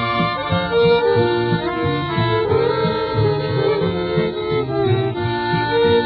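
Background music: an instrumental passage of an old-time country song, with fiddle and squeezebox-like tones over a steady bass beat.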